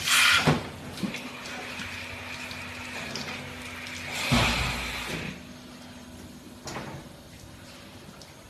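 Robotic milking machine working under a cow: a sharp hiss at the start, then a steady hiss over a faint hum. A second, louder hiss with a low thump comes a little past four seconds, then only a quieter machine hum with one short hiss near seven seconds.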